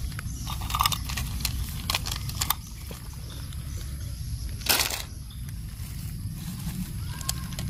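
Plastic toy train track pieces clicking and clattering as they are picked up from among weeds and gathered in the hand, with leaves rustling. One louder clatter comes about five seconds in, over a steady low rumble.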